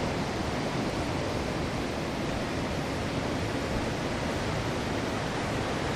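Ausable River water rushing through the sandstone chasm: a steady, even hiss of running water.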